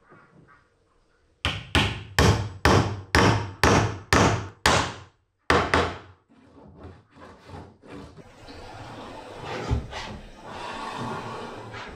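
A steel hammer strikes the end of a wooden strip lying on wooden floorboards: about ten sharp blows in quick succession, roughly three a second, then one more after a short pause. Quieter scraping and rubbing on the wooden floor follows and grows toward the end.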